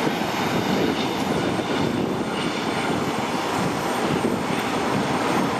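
Jet noise from an F-35A Lightning II's single Pratt & Whitney F135 turbofan: a steady, loud rushing sound without sharp changes.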